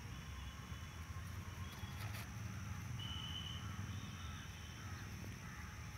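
Birds calling in the background, short chirps repeating from about halfway through, over a steady low rumble and a steady high tone.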